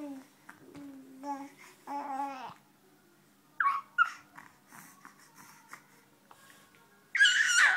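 Infant babbling in pitched coos, then two short high squeaks and, near the end, a loud high-pitched squeal of delight as a napkin is swept over its face.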